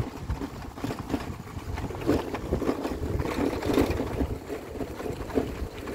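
A vehicle driving over a rough gravel road, its rumble mixed with wind buffeting the microphone in uneven gusts.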